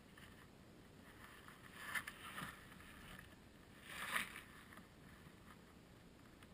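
Faint steady wind hiss at an onboard camera microphone, with two brief rustling bursts about two seconds and four seconds in.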